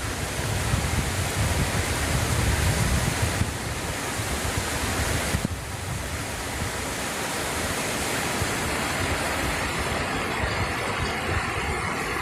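Steady rushing wind noise on the microphone, with heavy low buffeting in the first few seconds that eases into a smoother hiss.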